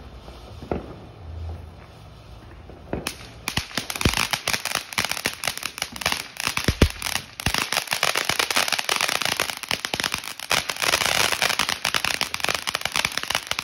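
Ground fountain firework burning on pavement: at first a soft spray with a few separate pops, then, about three and a half seconds in, breaking into a dense, continuous crackle of many small pops.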